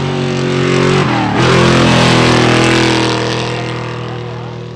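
Trophy truck racing past at close range: the engine note drops sharply in pitch as it passes, a little over a second in, with a burst of hiss, then fades away.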